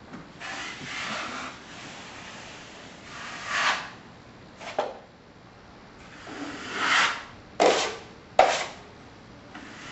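A 12-inch drywall taping knife scraping joint compound across a wall patch in several swipes, the last two short and sharp.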